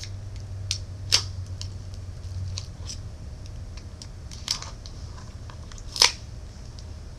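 A few sharp, light clicks and taps from handling the opened iPhone 3GS and its parts, the loudest about a second in and again near the end, over a steady low hum.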